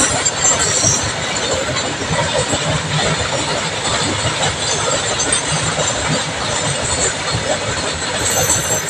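Long freight train of covered box wagons rolling past close by: a steady, loud noise of wagon wheels running on the rails, with a brief high-pitched squeal near the end.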